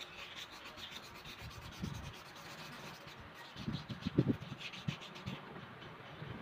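Sandpaper rubbed back and forth by hand on the motor shaft of an Orbit fan, scrubbing dust and rust off a shaft that had been binding in its bushing. A few handling knocks come about midway.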